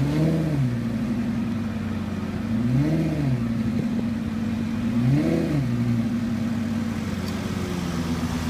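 Lamborghini Gallardo's V10 engine idling and blipped three times, each rev rising and falling back to idle within about a second, then idling steadily.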